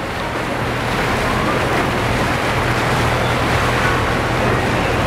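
Steady low rumble of a passing motor yacht's engines under an even wash of water and wind noise.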